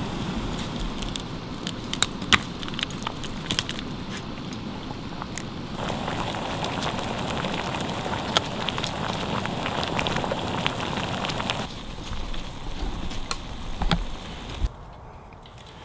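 Canister gas stove burner running with a steady hiss while the water in its pot boils hard, with scattered pops and crackles. The sound shifts in level a couple of times and drops near the end.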